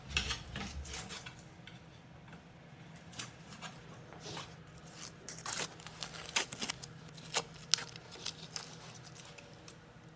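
Hands handling small wooden frame parts: scattered light taps, clicks and short scraping strokes at an irregular pace, with one sharper click near the end.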